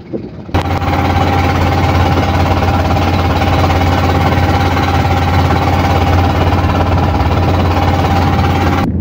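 Small boat's engine running steadily, starting suddenly about half a second in and cutting off just before the end.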